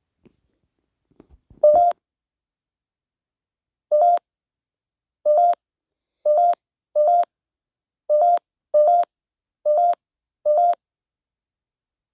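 Nine short, identical electronic beeps at uneven intervals, with a few faint low knocks just before the first.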